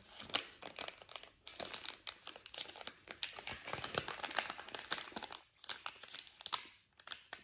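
Plastic Snickers wrapper crinkling as it is handled and folded: a dense crackle for about five seconds, then a few shorter bursts and scattered crackles.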